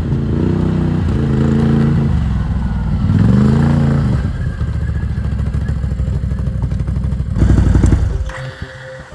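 Can-Am ATV (quad) engine running as it rides up and pulls to a stop: the revs rise and fall, settle to a steady idle, then blip up once loudly before the engine stops.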